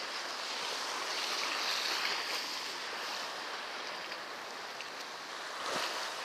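Sea waves washing against a rocky shore: a steady hiss of surf, with a brief louder surge near the end.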